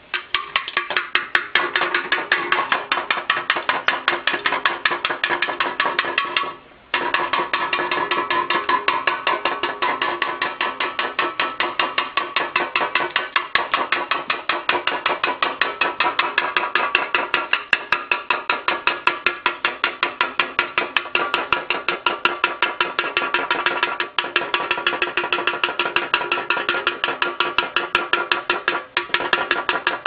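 A bird pecking steadily at a metal can, a fast, even run of ringing taps several times a second, with a short break about seven seconds in and another near the end.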